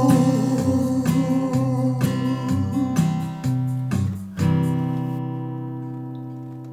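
The song's closing bars on strummed guitar, ending on a final chord about four seconds in that rings out and slowly fades.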